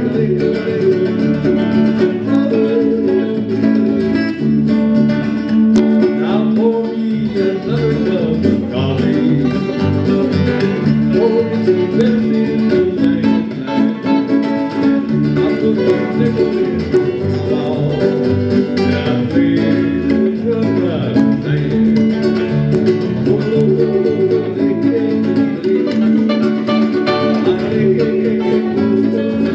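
Live country music from a small band: guitars picking and strumming over keyboard, with a steady held low note underneath.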